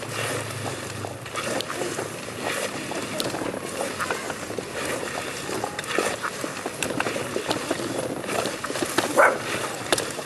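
A person crawling on his belly along stone paving: clothes and shoes scraping and rustling on the paving, with a short louder sound about nine seconds in.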